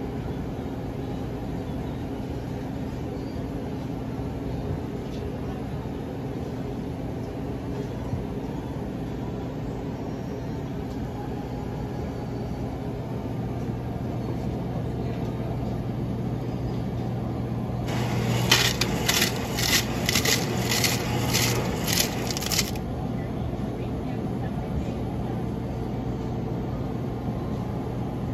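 Automated frappe vending machine running with a steady mechanical hum. About eighteen seconds in, a run of about nine sharp clatters, roughly two a second, lasts some four seconds as ice is dispensed into the plastic cup.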